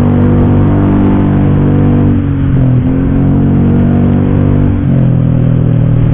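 Honda PCX scooter's single-cylinder engine running through an aftermarket racing exhaust at cruising speed, a steady deep drone whose pitch shifts twice as the throttle changes.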